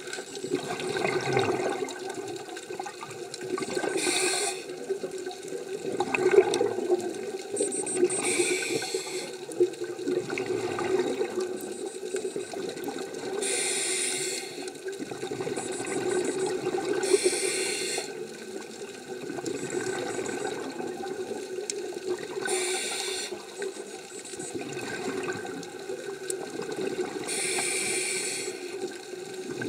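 Scuba regulator breathing heard underwater: six bursts of exhaled bubbles, one every four to five seconds, over a steady underwater hum.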